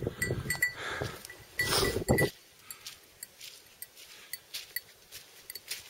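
A hiker's footsteps and heavy breathing on a wet, leaf-covered mountain trail, with a small metal bell clinking at each step. A little over two seconds in, the sound drops to quieter, more distant steps and clinks.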